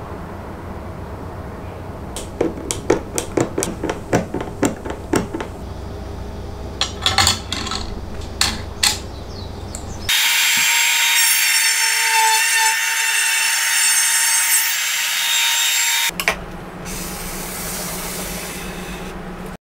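A run of short clicks and knocks, then a cordless trim router (Makita RT50DZ) runs for about six seconds with a steady high whine while cutting a groove in a wooden board, and stops suddenly.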